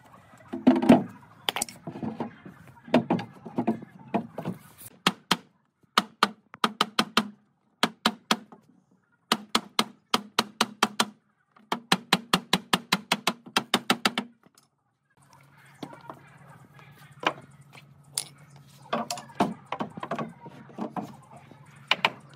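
Runs of sharp knocks on wood, about six a second with short breaks, typical of hammering or tapping boards together. A steady low hum comes in about two-thirds of the way through, under more scattered knocks.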